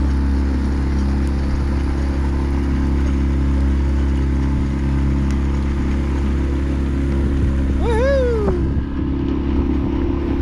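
A sailboat's engine running steadily under way, a constant drone with the rush of the wake over it. About eight seconds in, a short cry rises and falls in pitch over it.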